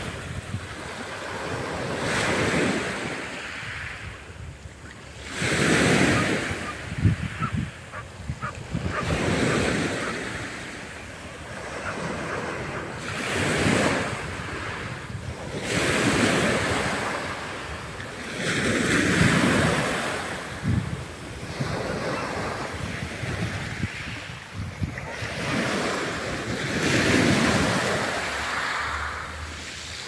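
Black Sea waves washing onto the shore in a steady series of surges, each one swelling and fading about every three to four seconds.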